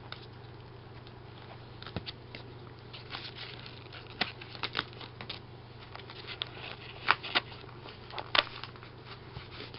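A cardboard box being opened and its packing handled: scattered crinkles, taps and sharp clicks at irregular intervals, the loudest a few seconds from the end.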